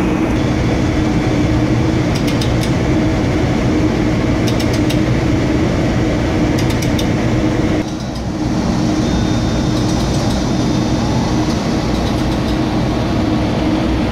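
Steady, loud engine-room drone of a ship's running marine diesel generators, with a deep rumble and a steady hum, and light clicks about every two seconds.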